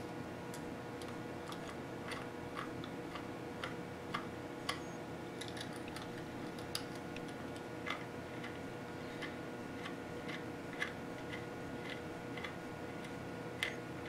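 Small screwdriver turning the side screws of a hard drive water block into the drive, giving scattered small metal clicks and ticks as the screws are snugged until they grip. A steady low hum runs underneath.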